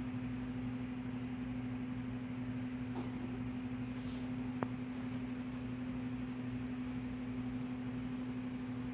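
Steady mechanical hum with a low drone, with a single sharp click about halfway through and faint soft rustles.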